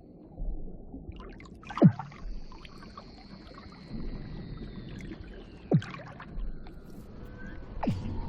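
Weddell seals calling underwater: three sharp descending sweeps, about two seconds in, near six seconds and near the end, over a long high whistle that slowly falls in pitch.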